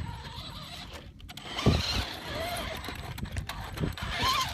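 Radio-controlled truck driving over rocks: electric motor whine rising and falling with the throttle, with a few sharp knocks of the chassis and wheels on rock.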